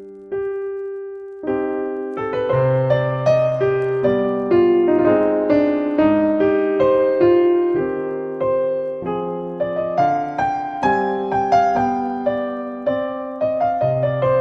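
Solo piano music: a single note about half a second in, then a slow, gentle melody over chords, each note struck and fading.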